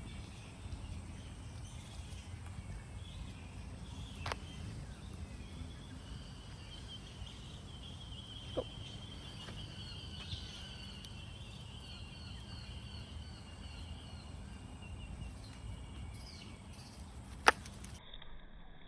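Outdoor background with a steady low rumble and birds chirping in short repeated calls through the middle. A few sharp clicks are heard, the loudest near the end.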